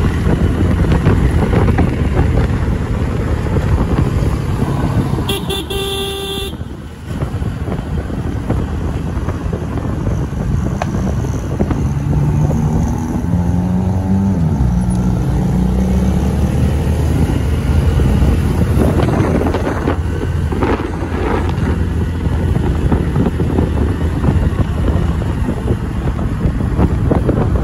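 Motorcycle riding in city traffic: a steady engine rumble with wind on the microphone. A vehicle horn honks once for about a second around five seconds in, and about twelve seconds in the engine revs up, its pitch rising as it pulls away.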